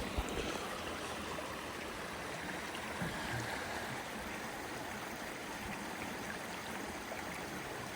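River water flowing, a steady even rush of running water.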